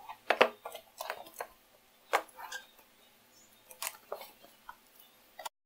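A cardboard parcel being handled on a wooden table while a plastic box cutter is readied: a scatter of sharp clicks and knocks with light cardboard rustle between them.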